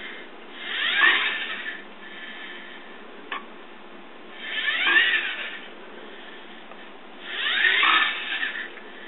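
Wheel motors of a small two-wheeled self-balancing robot whining in three swells, each about a second and a half long, the pitch gliding up and down as the robot drives back and forth to keep its balance. A single sharp click comes about three seconds in.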